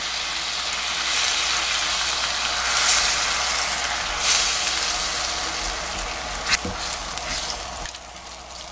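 Marinated beef bulgogi sizzling in its sauce in a nonstick frying pan while two silicone spatulas stir and turn it, with an occasional knock of a spatula on the pan. The sizzle eases off a little near the end.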